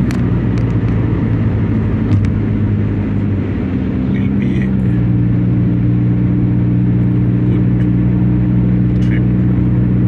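Car engine hum and tyre noise heard from inside the cabin while driving at road speed; the engine note shifts to a new pitch about five seconds in and then holds steady.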